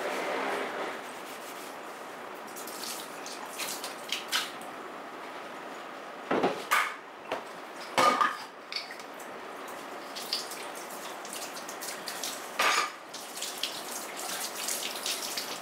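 Washing dishes by hand at a kitchen sink, with the tap running steadily. Several sharp clinks and knocks of crockery and utensils sound over the water, the loudest a little after halfway.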